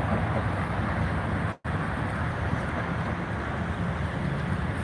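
Steady outdoor rumble of vehicles, with wind noise on the microphone. The sound drops out completely for a split second about one and a half seconds in.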